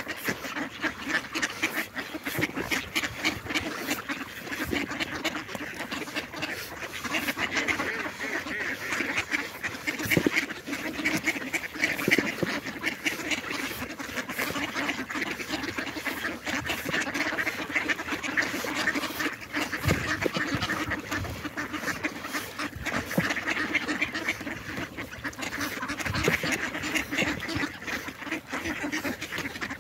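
A large flock of mallards quacking continuously while they feed, a dense, overlapping chatter of quacks with many short clicks mixed in.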